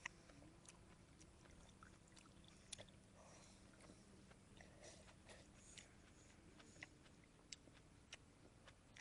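Near silence, with faint scattered small clicks and ticks.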